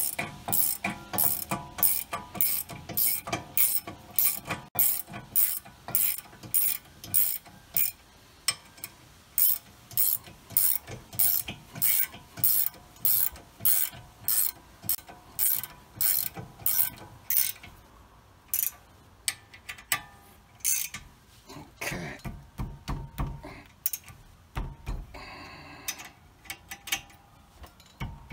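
A 15 mm ratcheting wrench clicking steadily, about two to three clicks a second, as it runs a brake caliper bracket bolt in. The clicking thins out about two-thirds of the way through, and a few scattered clicks and dull metal knocks follow.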